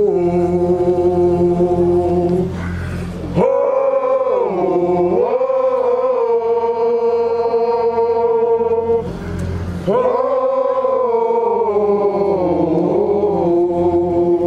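A man's voice singing long held notes into a handheld microphone, sliding from one pitch to the next, with breaks for breath about three seconds in and again about nine seconds in. A lower steady drone sits underneath in the first and last parts.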